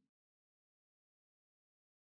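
Silence: the sound is cut to nothing.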